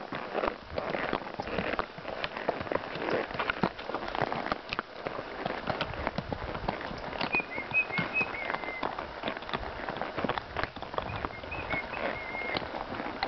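Horses walking on a dirt trail: a steady, irregular patter of hoof footfalls and crunching on dry ground. A small bird gives two short bursts of high chirps, about seven seconds in and again near the end.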